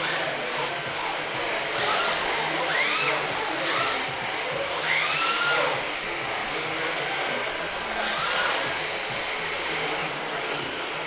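Electric RC drift cars running on a track: their motors whine, rising and falling in pitch with the throttle, over a steady hiss. Several louder surges come and go as the cars accelerate and slide through the corners.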